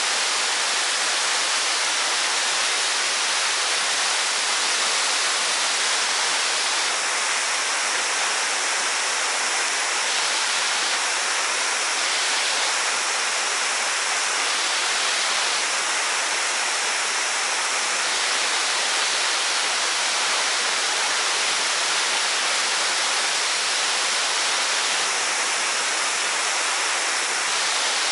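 Rimbi waterfall rushing steadily: an even, unbroken hiss of falling water.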